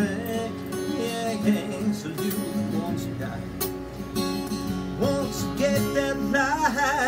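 Acoustic guitar being strummed and picked through a tune, with a high wavering voice joining in near the end.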